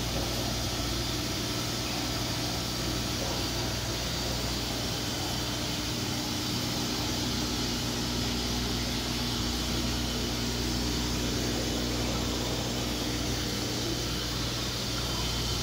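Aquarium filter pumps and aeration running: a steady low hum under an even hiss, with no change throughout.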